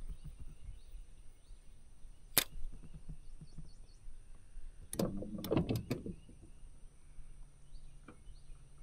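Quiet lakeside ambience with faint bird chirps, broken by a single sharp click about two and a half seconds in and a short cluster of knocks and clatter around five to six seconds in.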